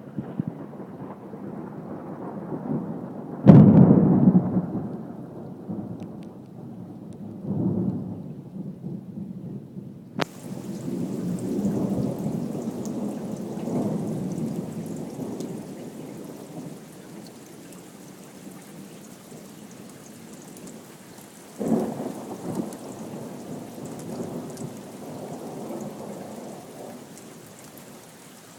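Thunder: a sharp, loud clap a few seconds in that rolls off into a long rumble. Further peals and rumbles follow, with another sudden clap about two-thirds of the way through. Steady rain hiss comes in about a third of the way in and continues under the thunder.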